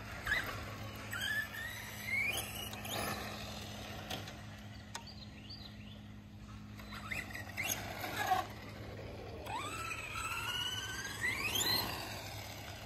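Electric motor of an R/C dirt modified car whining as it accelerates, its pitch rising in several runs; the longest and loudest run comes near the end.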